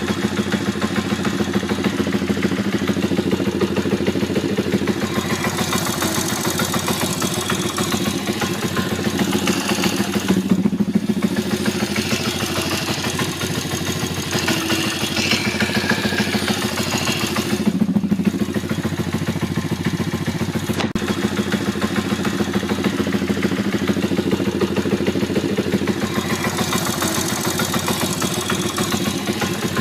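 YX140 single-cylinder four-stroke pit bike engine idling at very low revs, with an extra knocking from the right, clutch side of the engine. The knock shows only at very low revs and is absent when the revs are raised.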